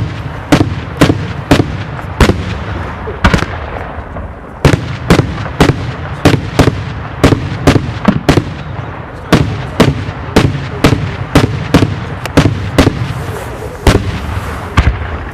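Daylight fireworks display: a rapid, irregular series of loud aerial shell bursts, about two to three bangs a second, with echoing rumble between them and a brief lull about four seconds in.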